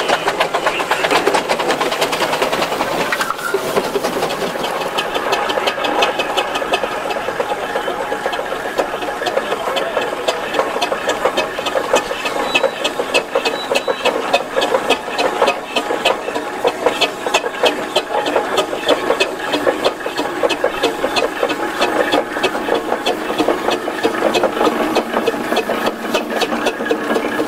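Steam traction engines driving past one after another, running with a fast, even mechanical clatter.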